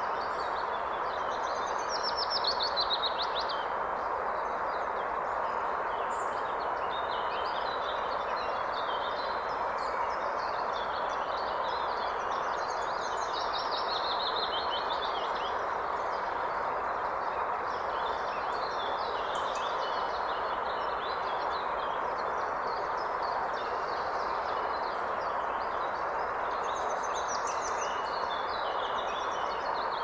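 Mountain stream rushing steadily over rocks, with small songbirds singing high above the water. A fast trill stands out about two seconds in, again around the middle and near the end.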